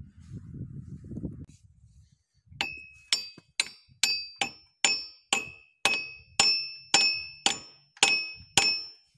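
Hammer striking metal: about thirteen sharp, ringing clinks, evenly paced at roughly two a second, starting between two and three seconds in. Before them, low scraping and handling noise from working on the engine by hand.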